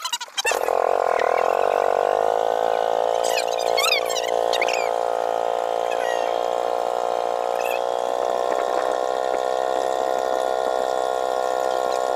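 Small motorized wooden boat's engine running at a steady pace, coming in about half a second in. A few short high chirps sound over it a few seconds in.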